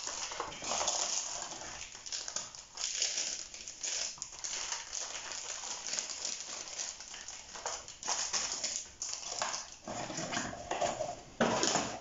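Paper tea sachets rustling and crinkling as they are handled, pulled from their carton and pushed into a plastic tea box, in many short irregular crinkles.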